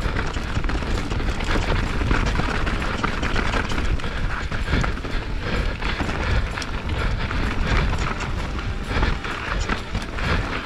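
A YT Jeffsy full-suspension mountain bike descending a rough trail at race pace: tyres rolling over dirt and roots, and the frame, chain and suspension rattling with frequent quick knocks over a steady low rumble of wind on the camera microphone.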